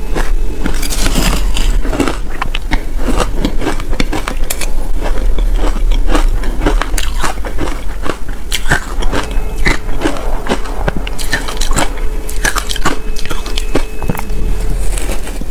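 Shaved ice being bitten and chewed up close, a dense run of crisp crunches and crackles with no pause.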